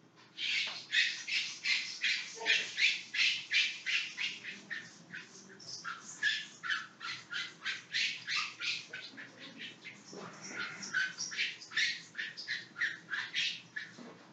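Felt-tip marker writing on a whiteboard: a quick run of short squeaky strokes, several a second, with two brief pauses.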